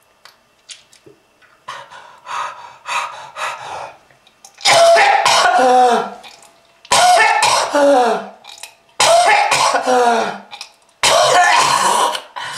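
A person coughing hard: a run of short coughs, then four long, loud coughing fits about two seconds apart, each with a voiced tone that falls in pitch. It is presented as a smoker's cough.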